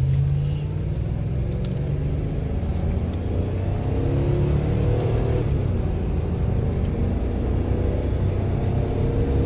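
Land Rover Discovery 2's 4.6-litre V8, fitted with a performance camshaft, remapped ECU and Magnaflow exhaust, accelerating hard from first gear, heard from inside the cabin. The engine note rises in pitch, dips about halfway through, then climbs again.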